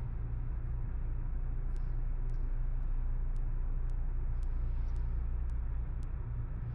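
Steady low hum of a running motor or machine, with a few faint ticks.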